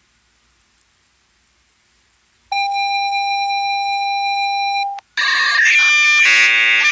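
Synthetic emergency-alert signal tones. After a couple of seconds of near silence, one steady electronic tone holds for about two and a half seconds. A brief gap follows, then a busier run of alert tones that step between pitches.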